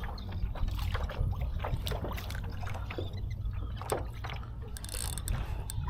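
Water lapping and splashing against a kayak hull, with many short sharp clicks and splashes and a steady low rumble underneath.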